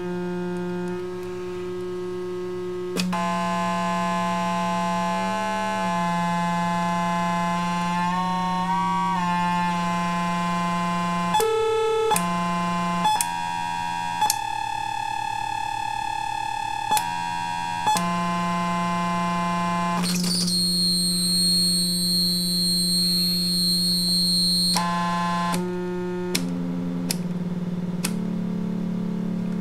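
Audio-visual synthesizer playing buzzy electronic tones: held notes over a low drone, jumping to new pitches every few seconds, with a brief wobble in pitch. A cluster of high whistling tones joins for about four seconds past the middle.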